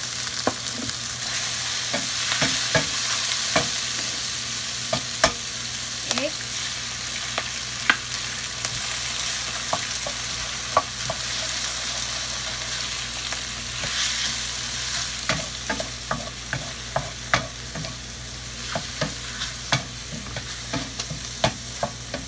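Mushrooms, onion and greens sizzling in a stainless steel frying pan while a wooden spatula stirs them, knocking and scraping against the pan in short clicks. The clicks come quicker in the second half.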